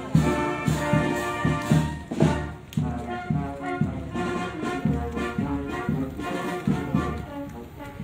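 Brass band playing a march with a steady beat, about two beats a second.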